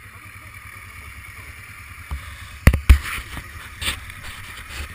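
Camera handling noise: two loud knocks close together a little under three seconds in and a weaker one about a second later, over a low wind rumble on the microphone.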